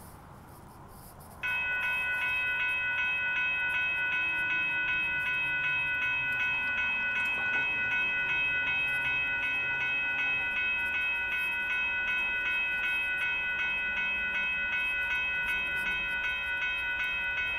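Railroad crossing warning bell starting suddenly about a second and a half in, then ringing steadily in a fast, even rhythm: the crossing signals have activated for an approaching train.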